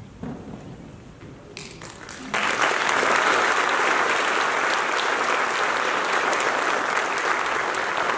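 Audience applauding: a few scattered claps about a second and a half in, swelling to full, steady applause just after two seconds.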